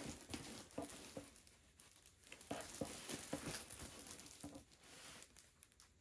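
Faint light taps and crinkling of plastic as a diamond painting canvas and its drill bags are handled. The taps come in small clusters, and the sound dies down toward the end.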